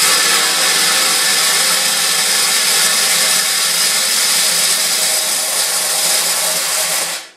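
Steel BBs poured from a glass into a galvanized metal trash can: a loud, dense, continuous rattling stream of pellets striking the metal for about seven seconds, starting abruptly and tailing off just before the end.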